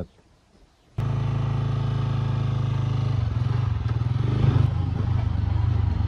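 Motorcycle engine running steadily under way, cutting in abruptly about a second in; its note shifts about three seconds in.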